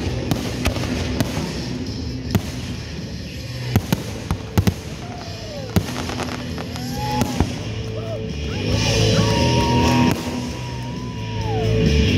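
Fireworks going off in a run of sharp bangs and crackles that thin out in the second half, over music playing throughout. The music grows louder a few seconds from the end.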